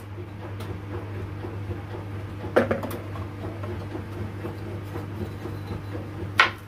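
Kitchen knife slicing okra on a plastic cutting board, with two sharper knocks of the blade meeting the board, one about two and a half seconds in and one near the end. A steady low hum runs underneath.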